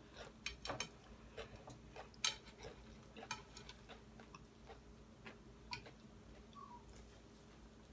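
Quiet, irregular clicks and ticks of eating close to the microphone: chewing and picking up half of a large burrito. The clicks come thickly for about three seconds, then thin out.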